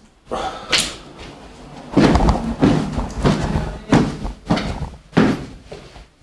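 Footsteps thudding on a staircase, roughly two steps a second, starting about two seconds in.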